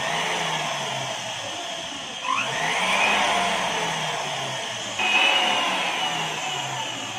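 Electric sewing machine motor running with a whine, driven through a newly repaired foot pedal that now works. The whine jumps up and rises in pitch at the start and again about two seconds in, then surges once more about five seconds in, easing off a little between surges.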